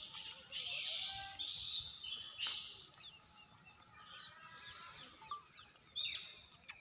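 High squeaky chirps in short bursts, some with brief falling notes, mixed with brief hissing noises.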